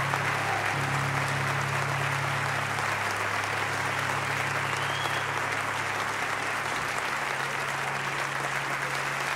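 Audience applauding at the end of a song, with a low held note from the stage sounding underneath.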